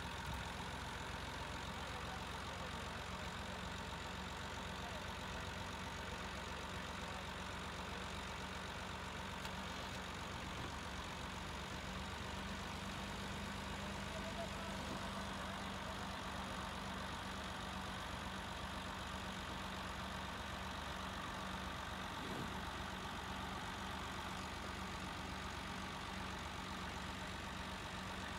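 Tractor diesel engines, a Massey Ferguson 260 nearest, idling steadily.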